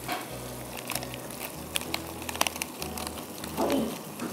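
A block of cheddar cheese rubbed on a metal box grater over a wok of simmering sauce: a soft rasping with a few sharp clicks. Background music with a low bass line plays underneath.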